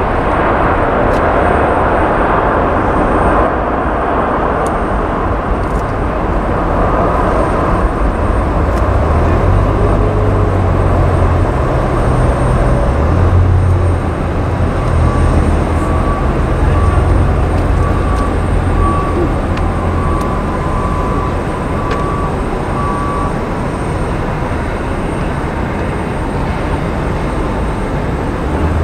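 Jet engines of an Emirates Airbus A380-861 (four Engine Alliance GP7200 turbofans) running on the runway: a loud, steady rumble that grows deepest in the middle as the aircraft passes.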